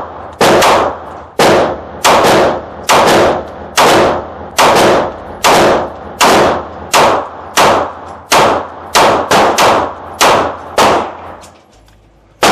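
Canik METE MC9 LS 9mm pistol fired in a steady string of about fifteen loud shots, roughly one a second, quickening toward the end.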